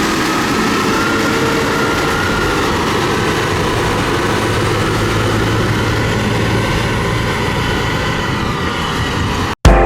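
LiuGong motor grader's diesel engine running steadily, cutting off abruptly near the end.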